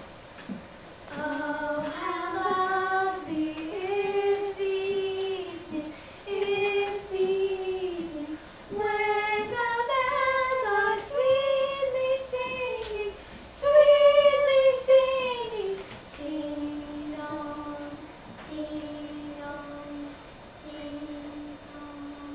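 A girl singing a slow, unaccompanied melody of long held notes, growing louder through the middle and falling softer and lower near the end.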